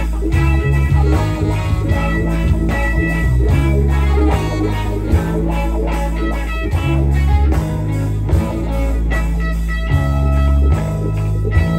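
Live rock band playing: electric guitar lines over a moving bass line and drums keeping a steady beat.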